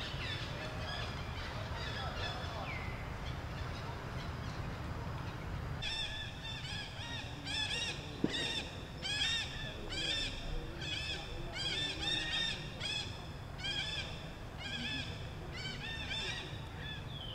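A monkey calling over and over in short, high-pitched, rising-and-falling cries, about one or two a second, starting about six seconds in, over a steady low background rumble.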